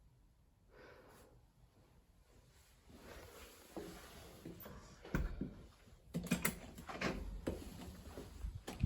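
A series of knocks and clicks, as of objects being handled, over a rising hiss; the sharpest knock comes about five seconds in, with a cluster of clicks a second later.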